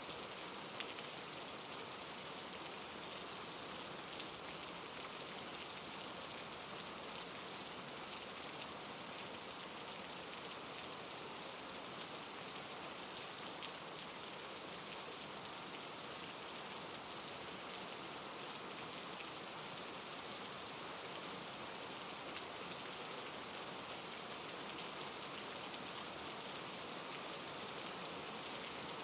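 Steady soft rain falling on a surface, an even hiss with scattered individual drop ticks.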